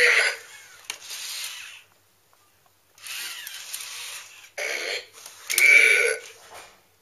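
Robosapien-type toy robots sounding short voice-like effects through their small built-in speakers as they grapple, in four separate bursts with quiet gaps between them.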